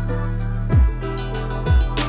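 Background music: an electronic beat with deep bass drum hits about once a second over held low bass notes.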